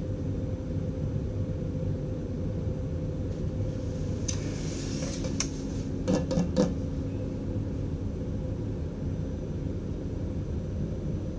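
Steady running rumble and hum in the driving cab of a DDZ double-deck electric train. About four seconds in there is a short hiss with a couple of clicks, followed by three quick knocks.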